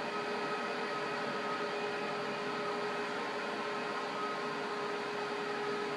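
CB radio static: a steady hiss from the radio's speaker between transmissions, with a faint steady whistle under it.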